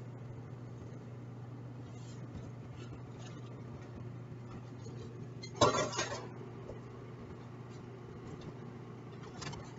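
Small kitchen handling sounds of a measuring spoon and salt canister over a steady low hum, with one louder clatter a little past halfway.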